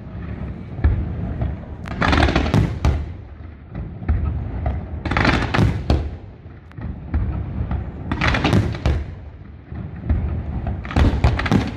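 Aerial fireworks bursting overhead: clusters of sharp bangs come about every three seconds, with a low rumble in between.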